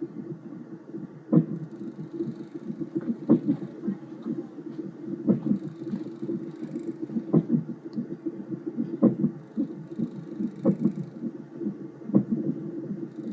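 Fetal Doppler monitor picking up a rapid whooshing pulse from the womb, with a sharp knock about every two seconds: the unborn baby hiccuping.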